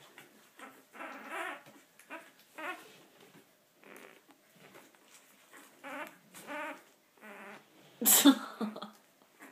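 One-week-old Olde English Bulldogge puppies making a series of short, pitched whimpering calls, with one louder, harsher cry about eight seconds in.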